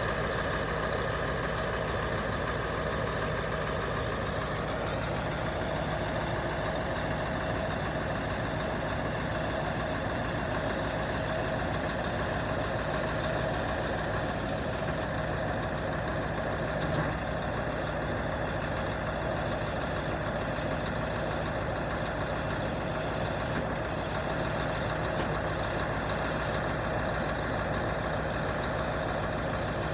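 Scania R144 truck's V8 diesel engine running steadily while its loader crane is worked hydraulically, the boom lowering and lifting. A single short knock comes about 17 seconds in.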